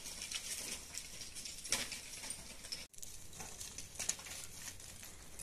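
Footsteps crunching and scuffing on loose stones and gravel, with scattered small clicks and clatters. There is a brief break about three seconds in, after which come more crunching and the snapping rustle of dry sticks being handled on stony ground.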